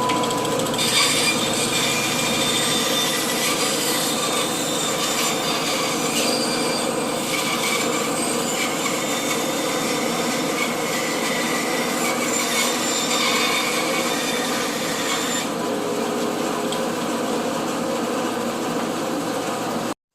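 A Rockwell Delta 14-inch bandsaw running and sawing wood, with a steady hum from the machine and a hiss from the cut from about a second in until about fifteen seconds, after which the blade runs on with less hiss.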